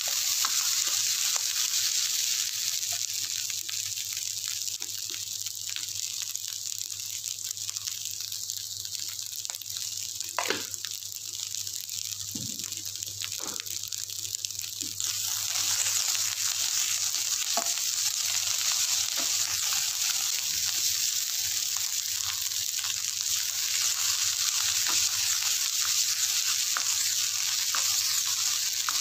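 Fried rice sizzling in a hot wok as it is stirred and tossed with a spatula, with light scrapes of the spatula on the pan. The sizzle grows louder about halfway through.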